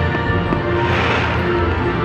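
Loud music with sustained steady tones playing for a fireworks show, with a rushing hiss that swells about a second in as firework fountains shoot up.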